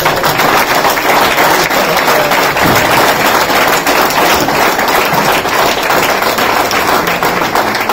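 Audience applauding: many people clapping together, steady and sustained.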